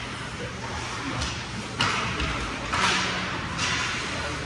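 Ice hockey skate blades scraping the rink ice in a run of short hissing scrapes, the sharpest about two and three seconds in.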